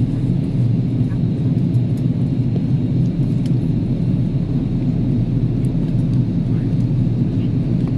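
Steady low drone of an Airbus A330-300 heard inside the passenger cabin on descent: engine and airflow noise, even and unbroken.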